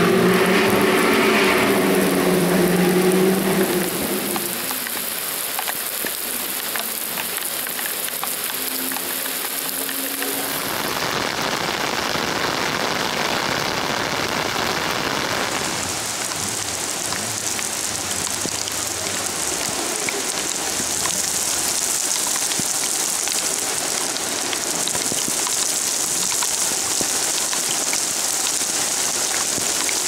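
Heavy rain pouring onto a tarmac road, a steady hiss. During the first few seconds a car engine is heard, fading away about four seconds in.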